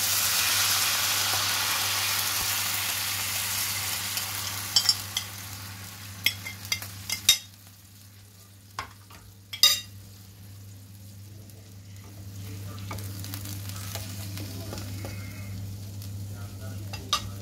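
Oyster-and-soy sauce poured into a hot oiled frying pan sizzling loudly, the sizzle fading over about seven seconds, with a few sharp clinks against the pan. Then the sauce simmering more quietly in the pan, growing a little louder near the end.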